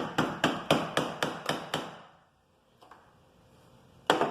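Nylon mallet tapping the left stator cover of a Honda CB300 engine to break it free from its gasket: a quick run of about eight sharp strikes, roughly four a second, then a pause, and another run starting near the end.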